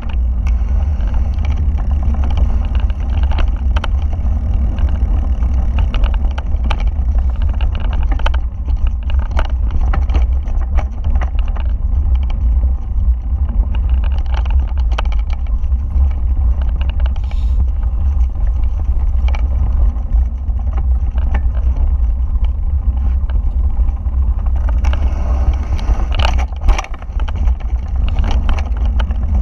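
Continuous low rumble of wind buffeting and trail noise as a bike rolls fast down a rough dirt trail, heard through a camera mounted on the handlebars. Frequent rattling clicks and knocks come from the frame and bars jolting over stones, with a louder clatter near the end.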